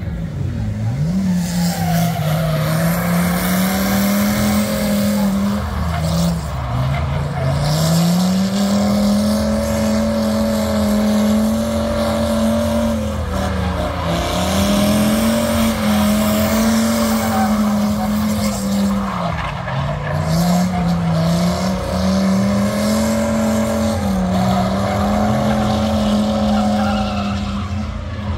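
Drift car engine held at high revs, its note dipping and climbing again every few seconds with the throttle, while the tyres squeal through a sustained slide.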